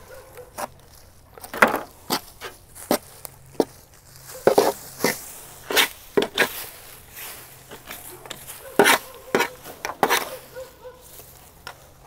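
Rusted sheet-steel car-body pieces being dug and pulled by hand out of dirt and dry leaf litter: a string of irregular sharp crackles, scrapes and knocks, with louder ones a little under two seconds in, around the middle and toward the end.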